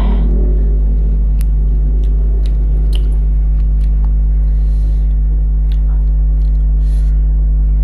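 Steady, loud low electrical hum, mains hum with its overtones, with a few faint scattered clicks and soft breathy sounds over it.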